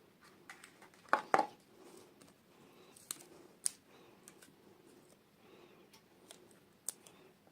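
Hands handling small toy pieces and their packaging: scattered clicks and taps, the loudest pair about a second in, with light rustling between.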